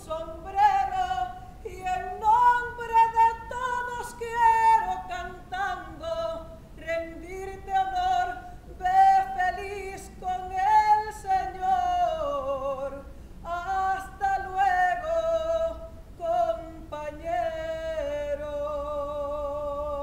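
A woman singing an improvised song unaccompanied, in long, sliding melismatic phrases, ending on a long held note with vibrato.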